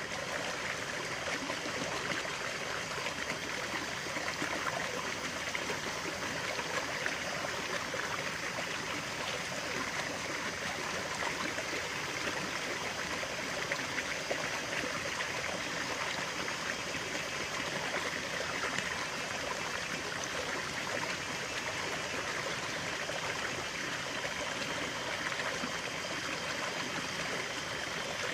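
Running water of a small stream, a steady babble and trickle.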